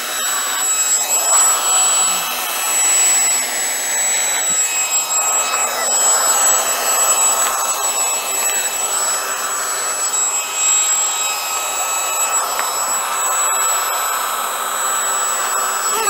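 Handheld P9 dust mite vacuum cleaner running on a bedsheet: a steady, high-pitched motor whine over rushing suction noise. The loudness rises and dips slightly as the head is moved over the fabric.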